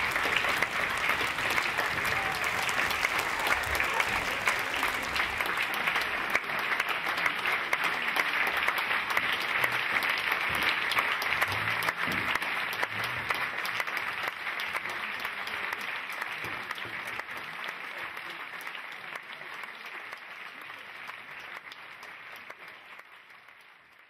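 A large audience applauding, a dense steady clapping that fades away gradually over the last several seconds.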